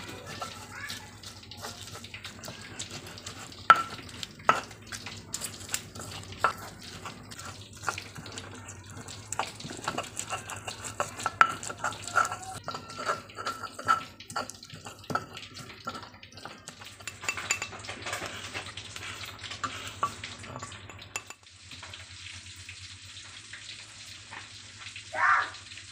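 Stone pestle crushing and grinding fried tomatoes, chillies and shallots in a stone mortar (cobek), with frequent sharp knocks of stone on stone and a scraping, squelching grind. The grinding stops about three-quarters of the way through.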